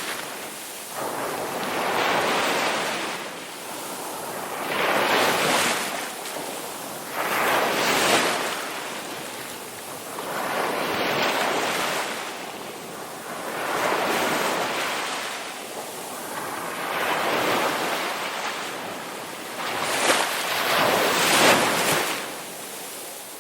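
Ocean waves breaking one after another, each one rising into a rushing crash and washing back, about every two to four seconds.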